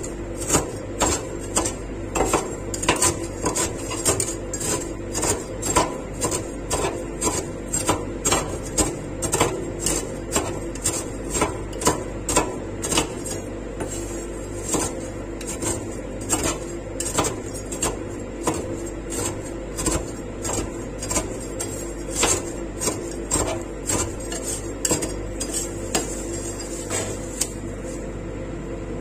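Two metal spatulas chopping and scraping crispy wheat pieces on the steel cold plate of a rolled ice cream pan: rapid, irregular metal clanks and scrapes, about two to three a second, that stop near the end, over a steady low hum.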